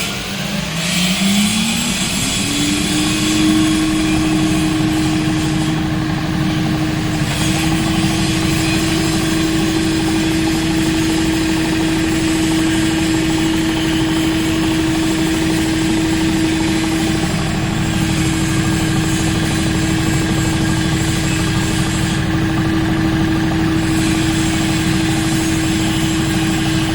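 KC-6 ammonia refrigeration compressor running steadily. Its tone rises in pitch over the first two to three seconds, then holds level, with a steady mechanical rumble underneath.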